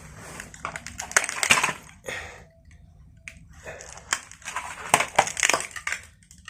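Irregular crunching and crackling of clutter being handled and shifted, a series of short scrapes and clicks with brief pauses.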